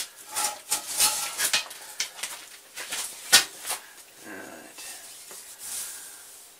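Irregular clicks, knocks and rustling of hands working the controls of a Bridgeport milling machine to switch it on, with one sharp click about three seconds in.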